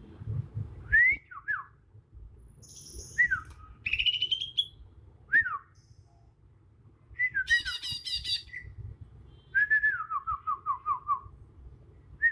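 Young male green leafbird (cucak ijo) singing its natural song, without mimicked phrases yet: short whistled notes that slide downward, a rising buzzy note, a harsh rasping burst about halfway, then a quick run of about eight descending notes. A low rumble runs underneath.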